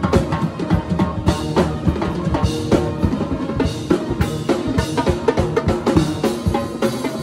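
Drum kit and marching tenor drums (quads) played together in a fast, busy pattern of bass drum, snare and tom hits, with held pitched notes sounding underneath.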